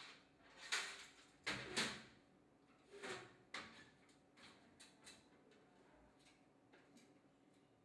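A few short knocks and scraping clatters, the loudest about a second and a half in, dying away into faint scattered ticks.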